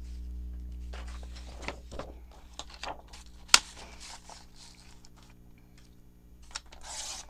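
Paper being handled and rustled during page cutting and marking, with one sharp tap or click about halfway through, over a steady low hum.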